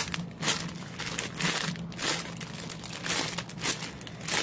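Clear plastic bag crinkling in irregular rustles as hands handle the squishy toys packed inside it.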